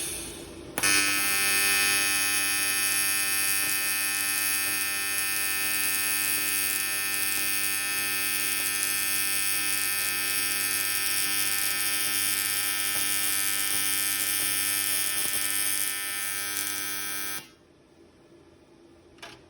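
TIG welding arc buzzing steadily, struck about a second in and cut off sharply near the end.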